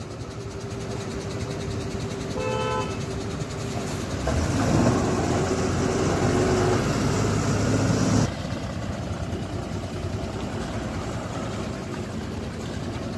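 Heavy goods trucks' diesel engines running in slow, jammed traffic, with a short horn toot about two and a half seconds in. From about four seconds the engine noise grows louder, then drops off sharply near eight seconds.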